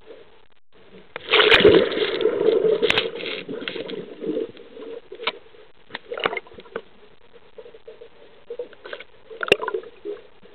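Water sloshing and bubbling against an underwater camera just below the surface, heard through its housing. A loud rush of water starts about a second in and lasts about two seconds, then comes and goes as scattered gurgles and sharp knocks.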